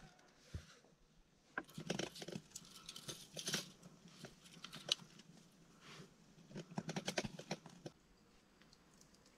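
Sandy soil being dug and worked by hand with a shovel and a metal rod: irregular bursts of scraping and small clicks and knocks, dying down about a second before the end.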